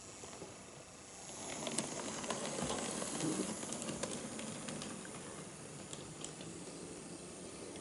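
HO-scale EF81 electric locomotive model running past on sectional track: a steady hiss of its motor and rolling wheels that grows louder as it passes close, from about a second and a half in to about four seconds, then eases as it pulls away, with scattered clicks from the wheels on the track.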